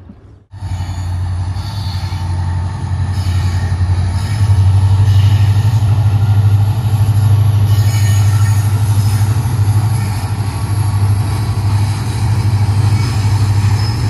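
Train crossing a steel truss railway bridge: a loud, steady low rumble of wheels on the bridge. It starts abruptly about half a second in and grows a little louder about four seconds in.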